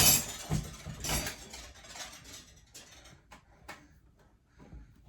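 Kitchen handling noise: light knocks and scrapes of small baking dishes, with rustling as pie-crust tops are laid on and pressed into place. The loudest knock is at the very start, and the sounds thin out after that.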